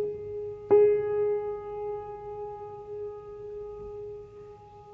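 A single piano note already ringing, struck again on the same pitch under a second in, louder, then left to ring out in a long, slow fade, as in a slow improvised ambient piece.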